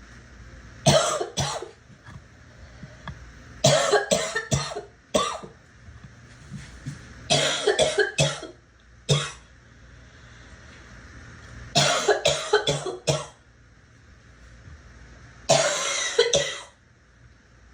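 A girl coughing in repeated fits of two to five quick coughs, one fit every three to four seconds.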